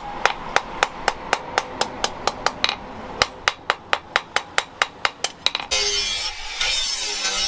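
Hand hammer striking a steel knife blade on a post anvil, about four ringing blows a second. About five and a half seconds in, it cuts to an angle grinder grinding the blade, a steady harsh grinding noise.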